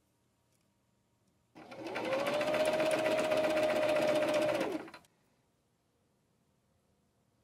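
Singer Esteem II electric sewing machine stitching through linen: about a second and a half in, the motor winds up to a steady speed with a rapid run of needle strokes, runs for about three and a half seconds, and stops.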